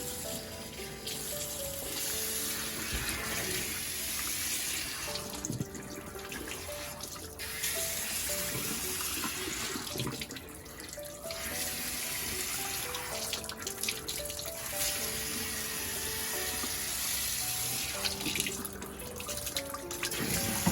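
Tap water running into a sink while a small dog's paws are washed under it, the flow breaking or thinning briefly a few times. Background music plays underneath.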